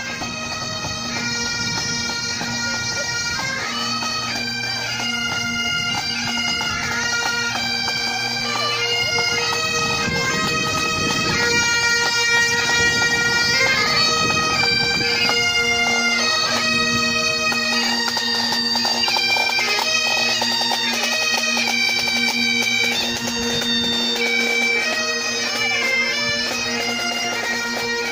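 Several Great Highland bagpipes playing a march tune in unison over their steady drones.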